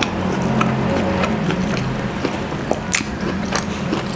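Close-miked chewing of a pastrami sandwich: soft wet mouth clicks and smacks, several a second.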